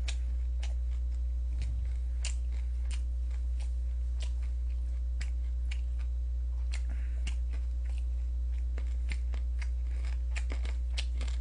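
A person chewing a mouthful of food close to the microphone: irregular soft clicks and crunches of the mouth. Under it runs a steady low electrical hum, which is the loudest thing throughout.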